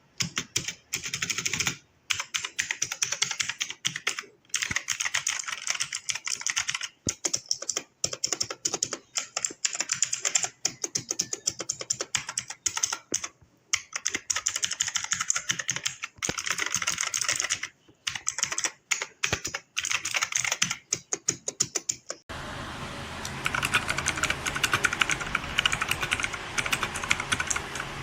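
Fast typing on a Digitalix K620 mechanical keyboard with clicky blue switches, in quick runs of keystrokes broken by short pauses. About 22 seconds in the sound of the typing changes, duller, with a steady hiss underneath.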